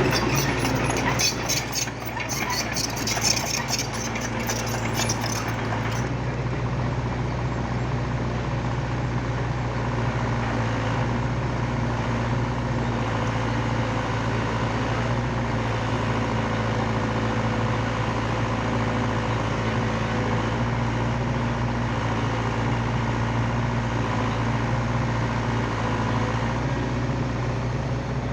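Hydraulic excavator's diesel engine running steadily with a low hum, with a spell of clicking and rattling over the first six seconds or so.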